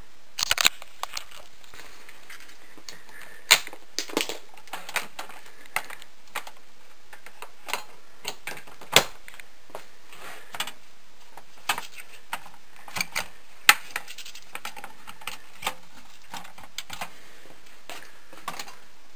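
Irregular light clicks and knocks, a few every second or so, with a few sharper ones standing out: equipment being handled on a workbench.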